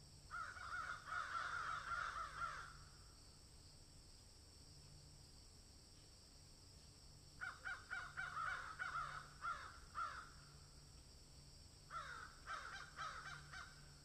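Three bouts of rapid, repeated animal calls, each lasting two to three seconds: one just after the start, one about seven seconds in and a shorter one near the end.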